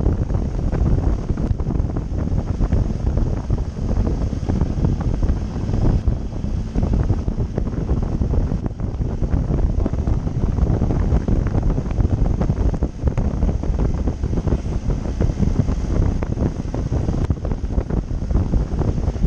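Heavy wind buffeting the microphone of a moving motorcycle, a steady, dense rumble with no distinct engine note standing out.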